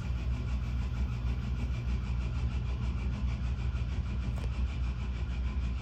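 Inline pipe exhaust fan running with a steady low hum and a fast, rough rattle above it from its failing bearings, which are worn badly enough that the fan is close to seizing.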